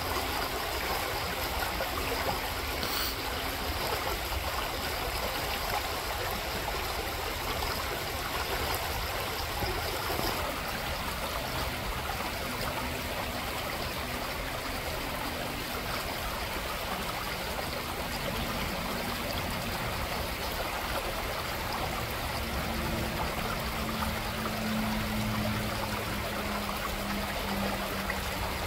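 Shallow, gravel-bedded creek running over stones: a steady rush and trickle of water.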